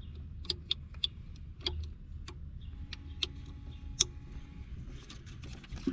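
Plastic wiring-harness connector handled and fitted at the car battery: about eight sharp, irregularly spaced clicks and ticks over a low steady hum.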